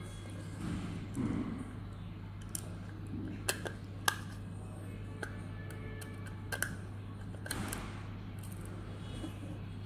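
Handling noise from a camera circuit board and wires being pressed into a plastic dome camera housing: soft rubbing and scraping with a few sharp plastic clicks, over a steady low hum.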